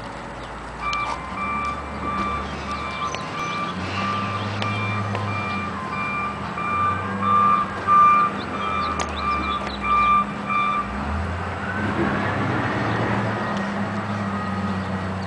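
A short beep at one fixed pitch, repeated quickly and evenly over a steady low hum. The beeping breaks off about eleven seconds in and starts again near the end.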